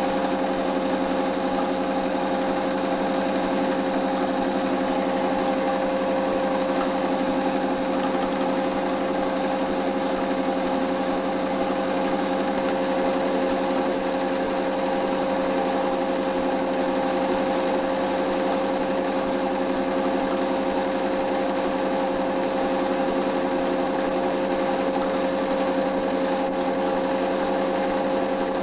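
Steady machine hum that never changes, with a constant low drone and a clear higher tone, most likely the running noise of the gear playing back the silent 8 mm film.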